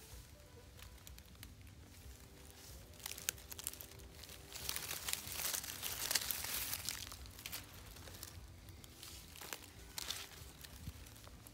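Dry fallen leaves crackling and crunching as a hand pushes through the leaf litter, in irregular bursts that are loudest in the middle.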